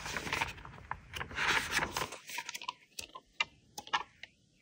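Paper pages of a notebook being turned one after another, rustling and flicking. About two seconds in it goes almost silent, with only a few light ticks.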